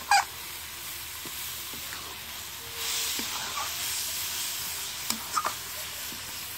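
Nearly finished carrot halwa sizzling in a hot kadai as a spatula stirs it, with a few short scrapes of the spatula against the pan. The sizzle swells for a second or so a little before the middle.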